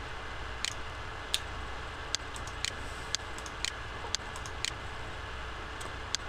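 Computer mouse clicking a dozen or so times at irregular intervals, about half a second apart, over a steady low electrical hum and hiss.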